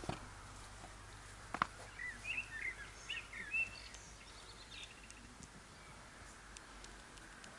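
A small bird chirping in a quick run of short, high notes from about two to four and a half seconds in. A sharp knock about a second and a half in is the loudest sound, over a faint steady outdoor background.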